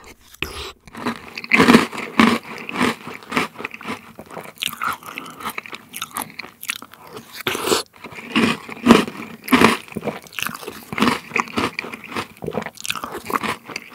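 Close-miked chewing of a mouthful of Maltesers in warm cream, with many irregular crunches as the crisp malted centres are bitten through.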